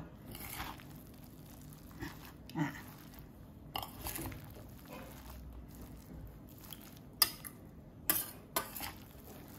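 Metal spoon stirring and mashing a sticky minced lotus-root and plant-based-meat mixture in a stainless-steel bowl, with scattered clinks of the spoon against the bowl; the sharpest clink comes about seven seconds in, followed by a few more near the end.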